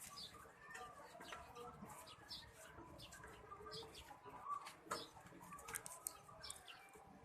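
Faint scattered clicks and small knocks of a hard drive being handled and fastened into a desktop PC case, over background birdsong with chickens clucking and doves cooing.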